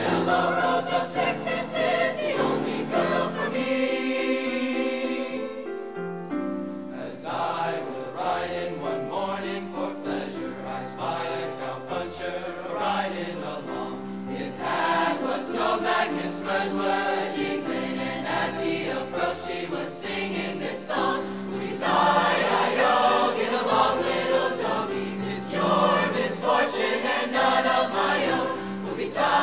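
Mixed four-part (SATB) high school concert choir singing with piano accompaniment, a held chord a few seconds in; the singing grows louder about three-quarters of the way through.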